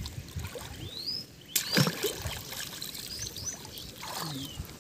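Water sloshing and splashing around a person standing waist-deep in a river, with a sharper splash about a second and a half in.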